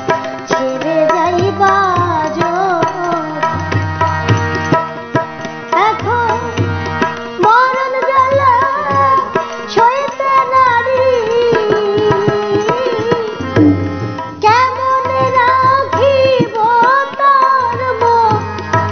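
Bengali Baul song: a woman singing, accompanied by harmonium and a tabla pair playing a steady rhythm.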